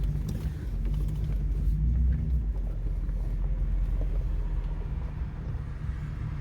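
Car driving, with a steady low engine and road rumble.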